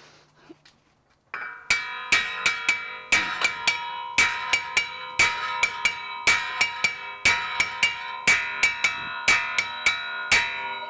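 Hammer blows on the steel hub and knuckle of a Dodge Avenger's front wheel, about one heavy blow a second with lighter strikes between, the metal ringing steadily. The hub bearing assembly is seized and will not come loose.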